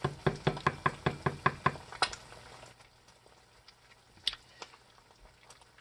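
A spatula knocking rapidly against a cast iron skillet, about five sharp knocks a second, stopping about two seconds in; after that only a couple of faint single knocks.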